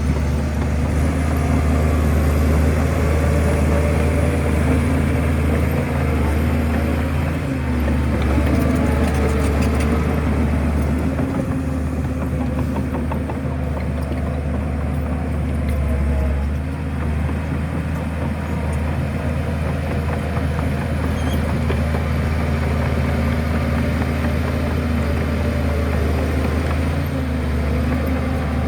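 Heavy diesel engine of a Shantui bulldozer running steadily with a deep drone, easing and swelling a little as it works.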